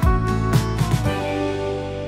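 Background music: a beat with held notes that stops about a second in, after which the last notes ring on and fade.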